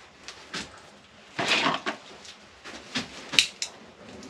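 Handling noises from blue tape and wiring being worked by hand: scattered small clicks and rustles, a longer scrape about a second and a half in, and a sharp click a little after three seconds.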